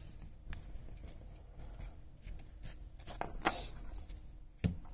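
A stack of baseboard trading cards being handled by hand: light clicks and rustles of card stock sliding against card stock, with a sharper knock near the end.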